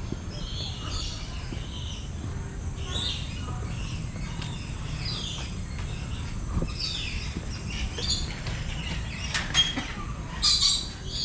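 Birds in a walk-through aviary chirping and calling again and again, with a few sharper, louder calls near the end, over a steady low background rumble.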